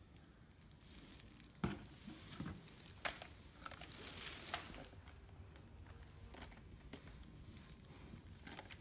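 Faint handling noise: irregular crinkling rustles with two sharp clicks about a second and a half apart, in the first half.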